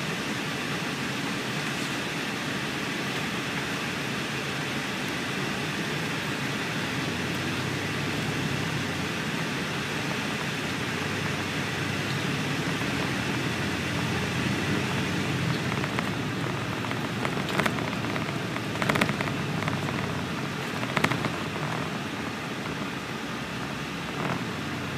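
Cabin noise inside a 2005 MCI D4500CL coach as it moves off and rolls along: a steady hiss of engine, tyres and air. A few short sharp knocks or rattles come about two-thirds of the way through.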